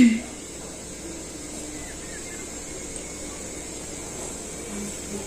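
A single loud human sneeze at the very start, cut off within a fraction of a second, followed by a steady background hiss with a thin high-pitched whine.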